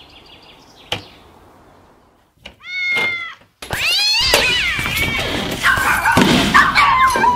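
Cat meowing: one short meow about three seconds in, then long, loud, wavering meows that run on to the end. A single thump comes about a second in.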